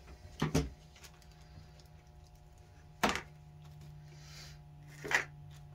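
Three sharp knocks as cast carburetor parts and a screwdriver are handled and set down on a workbench: one about half a second in, one about three seconds in and one near the end, over a low steady hum.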